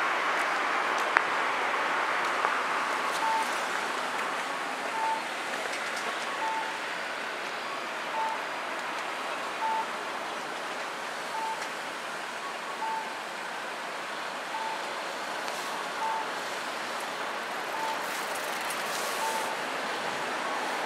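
Steady road-traffic noise with an electronic beep, one pitch, repeating about every second and a half from a few seconds in until near the end.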